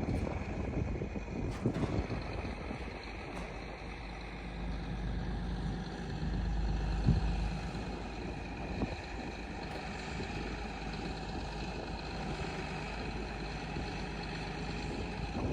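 A heavy vehicle's engine running steadily with a low rumble. It swells louder for a few seconds midway, with one knock near the loudest point.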